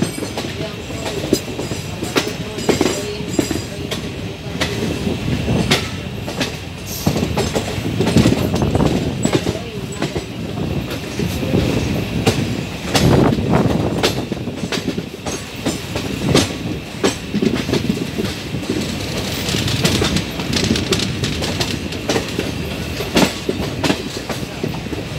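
Deccan Queen express coaches rolling out of the station: wheels clattering in irregular clicks over rail joints and points over a steady rumble, heard from the open coach door.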